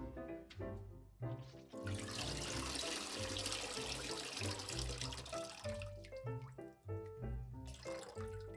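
Water draining quickly through the mesh of a lifted plastic Neighbor Clown rice-washing colander and splashing into a stainless steel bowl of water below. It starts about two seconds in and eases off after about six seconds. Background music plays throughout.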